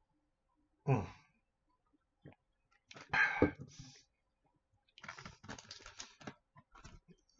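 A man's throat sounds after a swig of a drink, a cough and a breathy sigh, with a run of small clicks from handling things about five seconds in.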